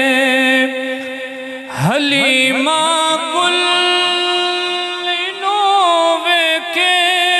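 A voice singing a Punjabi naat without accompaniment, in long held, wavering notes, sliding up into a new phrase about two seconds in.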